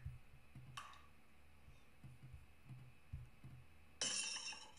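Glass-breaking sound effect played back from a sound file: a short burst of shattering near the end, which sounds a little loud, after faint clicking and a brief soft sound about a second in.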